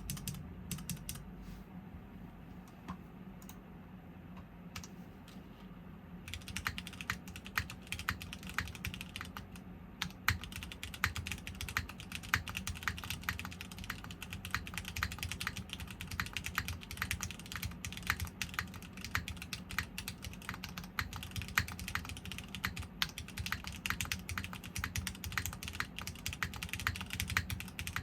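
Typing on a TGR Jane V3 custom mechanical keyboard with dry (unlubricated) Cherry MX2A Black linear switches, a top-mounted aluminum plate, GMK keycaps and no foam. A few scattered keystrokes for about the first six seconds, then fast, continuous typing.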